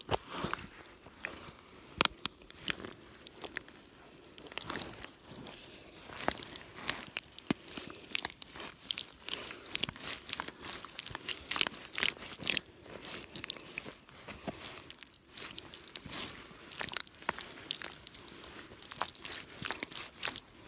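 Rubber boot working in deep, sticky mud: wet squelching with many irregular sharp pops and crackles as the mud shifts and sucks around the boot.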